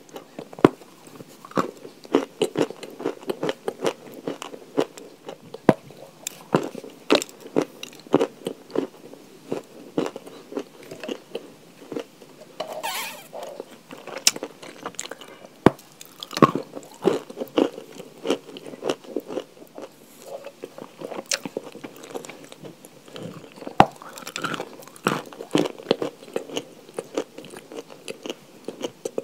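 Close-up crunching and chewing of chalk: an irregular, dense run of sharp crisp bites and cracks over steady chewing.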